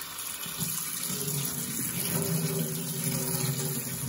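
Tap water running in a steady stream onto soaked chickpeas in a stainless steel colander in a sink, rinsing them.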